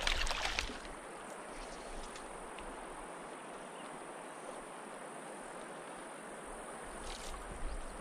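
Shallow mountain stream washing steadily over cobbles. In the first second there is a short burst of splashing as a trout thrashes in the landing net.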